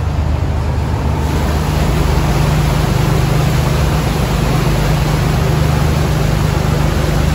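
A boat engine running steadily with the rush of churned water, growing louder about a second in as the boat passes under a stone arch bridge.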